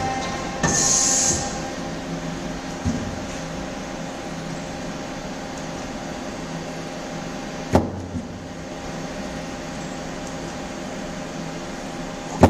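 Doosan Puma 400LB CNC turning center running with a steady mechanical hum carrying several fixed tones. A short hiss comes about a second in, and sharp knocks come a few times, the loudest at the very end.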